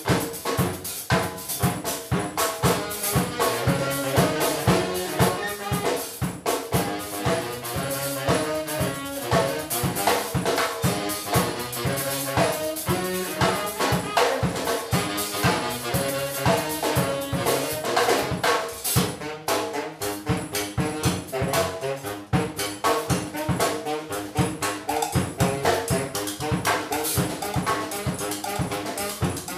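Live band music: saxophones playing over a busy drum kit, in a jazz-rock style.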